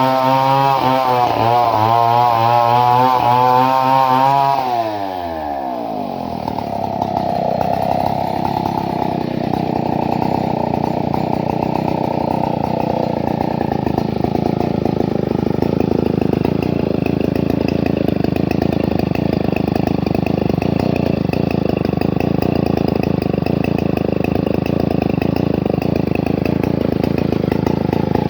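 Two-stroke chainsaw engine with a modified ignition, revving high with a wavering pitch, then dropping off about five seconds in and settling into a steady idle.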